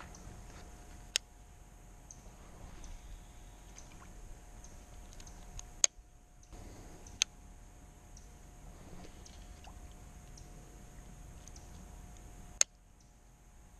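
A fishing reel being handled while casting and retrieving: four sharp clicks, typical of a spinning reel's bail snapping shut, over faint ticking and handling noise.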